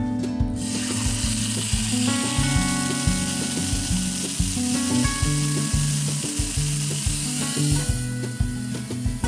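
Oiled Cornish hen sizzling as it goes into a hot, oiled Lodge No. 10 cast iron Dutch oven. The sizzle starts about half a second in and stops near the end as the lid goes on, over background acoustic guitar music.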